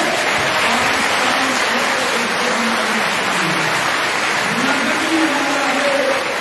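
Audience applauding steadily, with raised voices shouting over the clapping.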